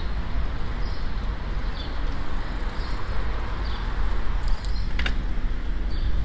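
Riding a bicycle alongside city traffic: steady wind rumble on the microphone over road and tyre noise, with cars in the next lane. There are faint high chirps about once a second, and a sharp click about five seconds in.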